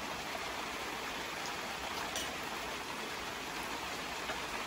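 Steady hiss of rain falling, with one faint tick about two seconds in.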